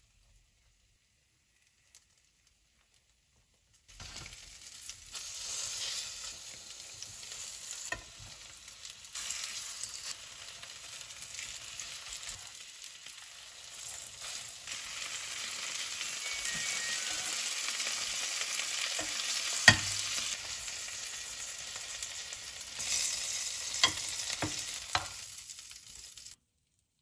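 Egg-battered perilla-leaf meat patties sizzling in oil in a frying pan, with a few sharp clicks on top, the loudest about two-thirds of the way through. The sizzle starts about four seconds in and cuts off suddenly near the end.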